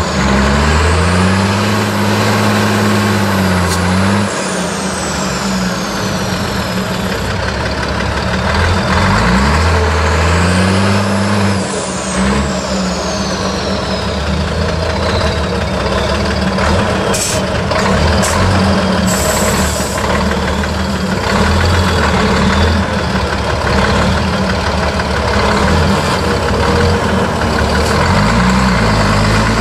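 LIAZ 706 trial truck's diesel engine revving up and dropping back again and again as the truck crawls over a steep mud mound, each rise followed by a high whistle falling in pitch. A few short sharp knocks and a brief hiss come about two-thirds of the way through.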